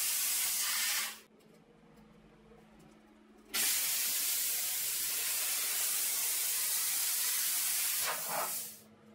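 Plasma cutter cutting with a loud, steady hiss. It stops about a second in, starts again abruptly about three and a half seconds in for about five seconds, then cuts off near the end.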